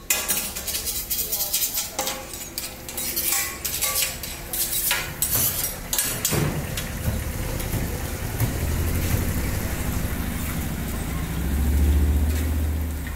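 Metal spatulas clinking and scraping on a large iron griddle as kababs fry in oil with a sizzle. About halfway through the clatter thins into a steady hiss, and a low rumble swells near the end.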